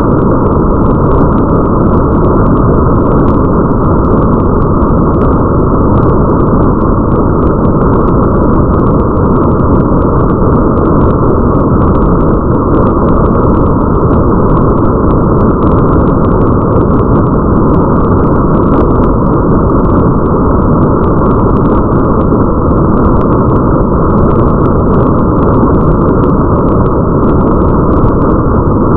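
Steady, muffled rain ambience blended with a deep, even rumble, its high end cut away, with faint scattered drop-like ticks above it.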